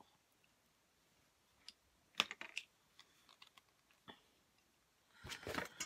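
Small hard-plastic clicks and taps as the pink plastic head of a We R Memory Keepers Sew Easy stitching tool is pulled off and handled. There is a sharp cluster of clicks about two seconds in and scattered single ones after it. A short rustle of handling comes near the end.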